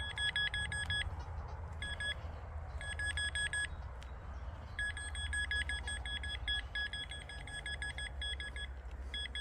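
Nokta Pointer pinpinter beeping in quick pulses, in several bursts with short gaps and one long run in the middle, as it is worked over a buried metal target.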